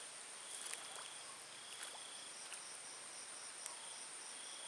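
Night insects calling: a steady high-pitched trill, with a lower call repeating in short spells about once a second, and a few faint clicks.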